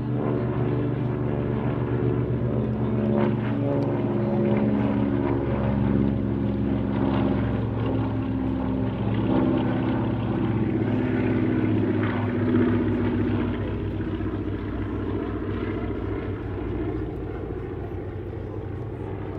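Formation of piston-engined vintage warbirds, a Hawker Hurricane with its Rolls-Royce Merlin V12, a North American T-6 and a twin-radial Beech AT-11 Kansan, droning past overhead. Several engine tones overlap and shift in pitch as the planes go by, and the sound grows fainter over the last few seconds.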